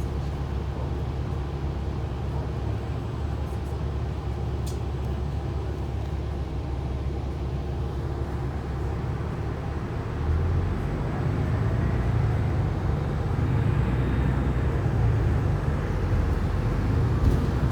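City transit bus riding along, a steady low rumble of engine and drivetrain heard from on board, growing louder about ten seconds in as the bus picks up speed, with a faint rising whine.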